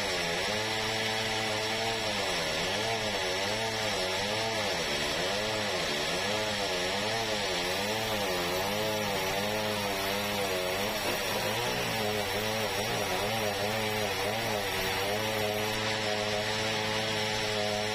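Sawmill running while sawing a large red meranti log into boards: a steady machine hum whose pitch dips and climbs back again and again, about once every second or so, over a constant hiss.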